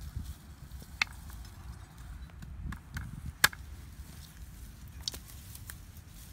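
A few sharp wooden clicks and knocks as thin sticks are handled and cut with a knife, the loudest about three and a half seconds in, over a low rumble.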